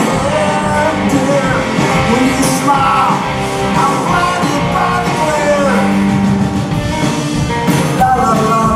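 Rock band playing live: two electric guitars and a drum kit, with a man singing over them.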